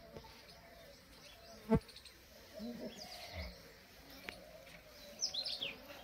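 Short bird chirps sliding down in pitch: one around the middle and a quick run of four or five near the end. A single sharp knock, the loudest sound, about a second and a half in.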